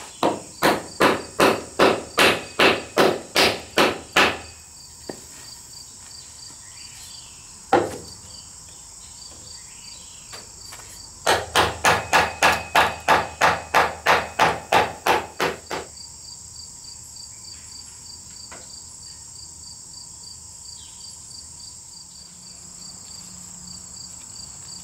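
A wooden baton strikes the spine of a knife again and again, driving the blade into the end of a wooden pole to split it. The blows come quick and even, about three a second, in two runs: one at the start and another from about eleven seconds in, with a single blow in between. Insects keep up a steady high chirring throughout.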